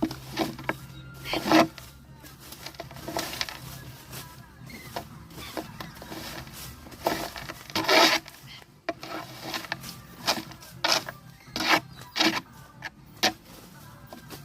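Leaves being swept up off a lawn: irregular scraping, rustling strokes, some louder than others.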